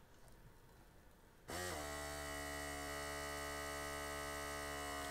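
Steady electric motor hum from the Philips Perfect Draft beer dispenser, starting suddenly about a second and a half in and holding an even pitch.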